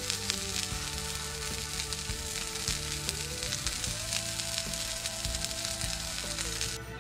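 Burger patty sizzling in a frying pan over a small wood fire, with fine crackles in a steady hiss; the sizzle cuts off suddenly near the end. Slow background music with long held notes plays underneath.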